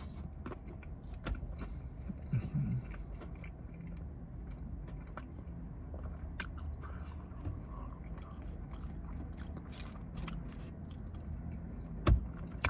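A person chewing food close to the microphone, with scattered small wet mouth clicks over a low steady hum and a brief murmured hum about two seconds in.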